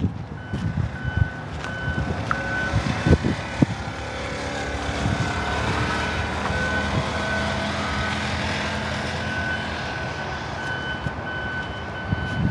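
An electronic beeper repeating short high beeps in a steady pattern, over a low steady hum.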